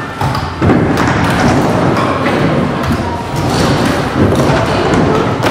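Stunt scooter wheels rolling over skatepark ramps, with several sharp thuds of wheels and deck hitting the ramp, one about four seconds in, as a rider lands off an air.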